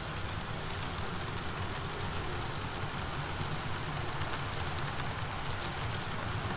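HO scale model freight train running past on the layout's track: a steady rumble of the cars' wheels rolling on the rails, with faint fine clicking.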